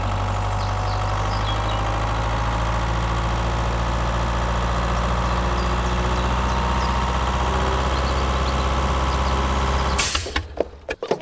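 A steady engine idling, which cuts off abruptly about ten seconds in, leaving a few faint clicks.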